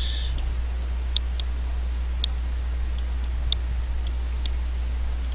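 Computer mouse clicking a few times at irregular intervals over a steady low electrical hum.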